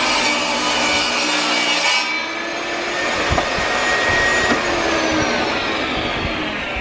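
Portable table saw cutting through a wooden board; about two seconds in the saw is switched off and its blade coasts down with a slowly falling whine, with a couple of light knocks along the way.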